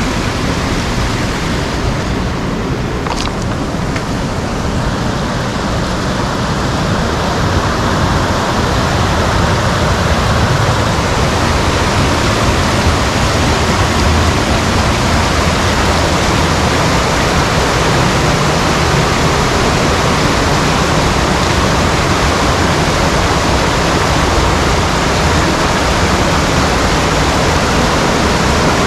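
Waterfall rushing: a loud, steady roar of falling water, growing a little louder partway through.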